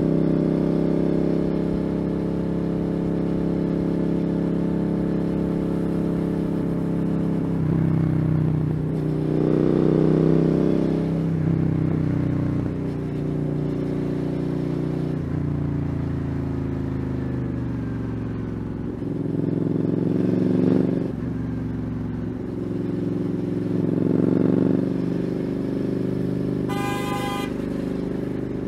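Motorcycle engine running while riding in traffic, its revs rising and falling several times with throttle and gear changes. A vehicle horn sounds once, briefly, near the end.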